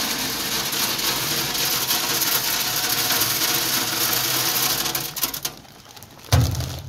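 Wood pellets pouring from a bag into the steel hopper of a King KP130 pellet stove, a dense rattling stream that tapers off about five and a half seconds in. A single thump follows near the end.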